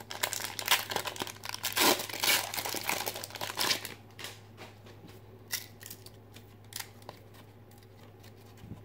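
A foil pack of 1992 Fleer Ultra football cards being torn open, the wrapper crinkling and ripping for about four seconds, then a few faint taps.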